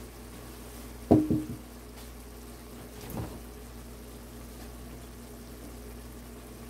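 Kitchen sounds over a steady low hum, with a faint simmer from a steaming pan of stew. About a second in comes a loud knock with a brief metallic ring, and a smaller knock just after three seconds.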